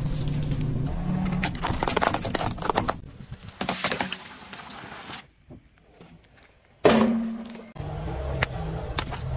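A car tyre rolling over and crushing brittle objects on asphalt: dense crunching and crackling about two to four seconds in, over a low engine hum. A loud sudden bang about seven seconds in fades away within a second, then the hum returns with a few sharp clicks.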